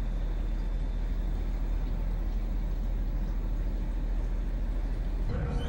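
Steady low engine rumble of an idling motorhome, heard from inside its cab. Near the end it changes to a different steady hum with a higher tone in it.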